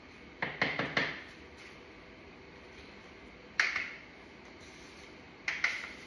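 Sharp taps of a hard object: a quick run of four in the first second, one about halfway through, and two close together near the end, over a steady low hiss.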